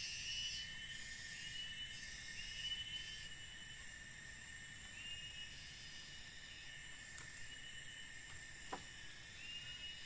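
Rainforest insect chorus: a steady high-pitched hiss with a short chirp repeating about once a second. There is a faint tap near the end.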